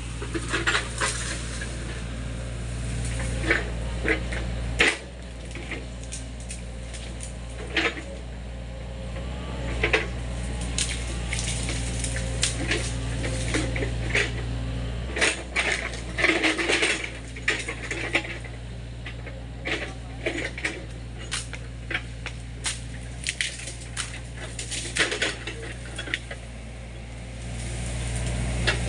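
Sany mini excavator's diesel engine running steadily while its bucket rips through brush and roots, with frequent sharp cracks, snaps and knocks of breaking stems and wood. The engine note drops about five seconds in and rises again near the end.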